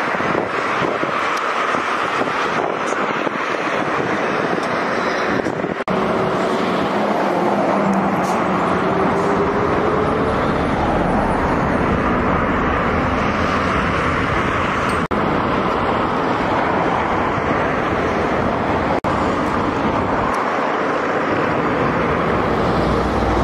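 Car cruising at speed on an open highway: steady tyre, road and wind noise, with a faint rising engine note about a third of the way in. The sound cuts out for an instant twice.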